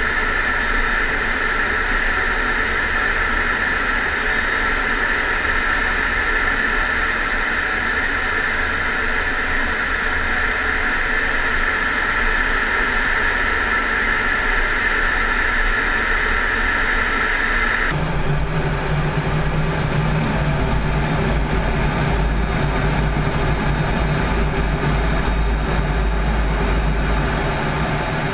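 Steady in-flight cockpit noise of an F-16D fighter jet, a continuous rush of jet engine and airflow. About eighteen seconds in the sound changes suddenly: the higher hiss drops away and a lower drone takes over.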